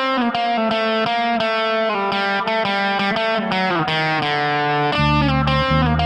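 Instrumental intro of a punk rock song: an electric guitar plays a riff of quickly changing single notes, and low bass notes come in about five seconds in.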